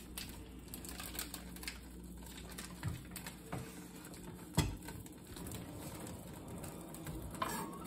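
Faint rustling and small clicks of a plastic wrapper being peeled off a round of fresh cheese by hand. One sharp knock about four and a half seconds in as the cheese is set down on a wooden cutting board.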